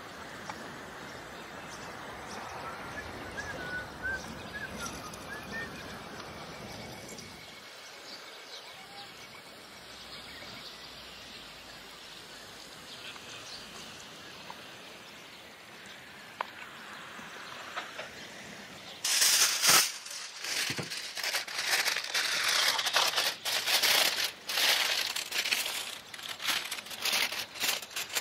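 Aluminium foil crinkling and crackling as foil-covered discs are handled, starting about two-thirds of the way in and going on in loud bursts, over steady outdoor background noise.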